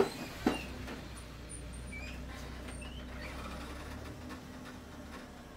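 Inside a city bus: the engine's low steady hum with cabin rattle, a single knock about half a second in, and a few faint short squeaks.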